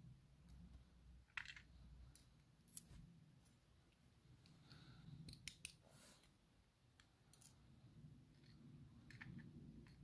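Faint, irregular small metallic clicks and ticks, about a dozen, from a pin-tumbler lock core and a steel pick and tweezers being handled as the pins are taken out of the core.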